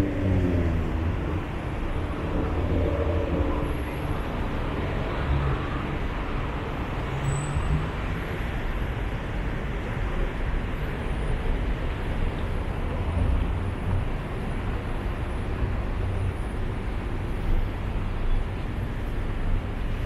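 Steady road traffic on a busy city road: a constant low rumble of passing vehicles.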